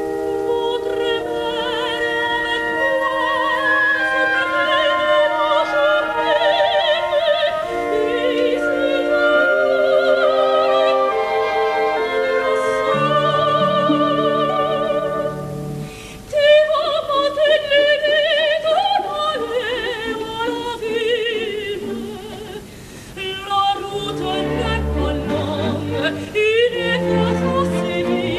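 Operatic singing with vibrato, soprano and tenor voices in duet over an orchestra. The music drops back briefly about halfway through and again near three-quarters of the way.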